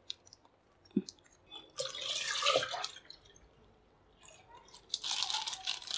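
Milk pouring from a plastic pouch into a steel pot, splashing in two stretches, with a short click about a second in.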